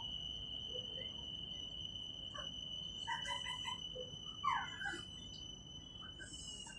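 Electric multiple unit's traction motors whining in a steady high tone over a low running rumble, the pitch starting to fall near the end as the train slows.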